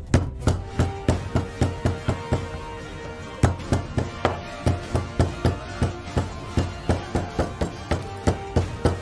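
Small hand hammer tapping a leather sandal laid on a rubber sheet, in a steady run of knocks about three a second, with a brief pause about three seconds in. Background music plays along.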